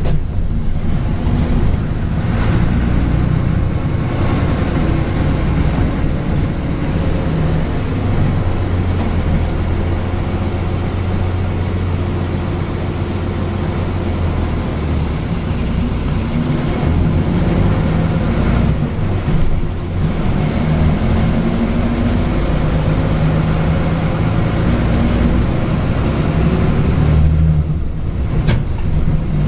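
Mitsubishi Fuso city bus's engine running as the bus drives through town, heard from inside the passenger cabin. The engine note rises and falls several times as the bus pulls through traffic.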